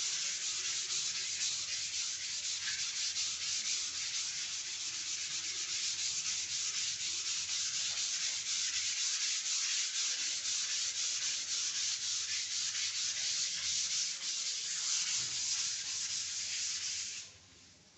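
Dry wall putty being hand-sanded with 180-grit sandpaper: a continuous scratchy rubbing from quick back-and-forth strokes, which stops shortly before the end. This is the smoothing of a two-coat putty wall before priming.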